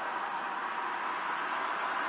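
A train approaching on the main line: its rolling rush grows steadily louder.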